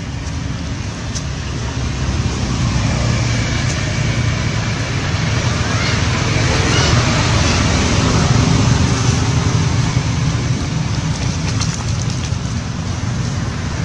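A steady, loud rumbling background noise with a hiss over it, growing slightly louder a couple of seconds in.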